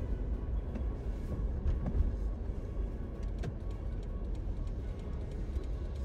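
A 4x4 car driving on a cleared road: a steady, low rumble of engine and tyre noise.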